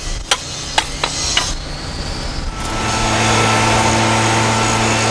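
Four sharp knocks and taps from hand tools on a tram rail during alignment work in its trough. About two and a half seconds in these give way to a louder, steady hum that holds one pitch.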